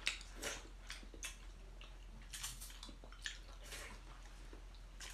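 Quiet eating sounds: wet chewing and slurping of glass noodles, with a few light clicks of chopsticks against a porcelain bowl.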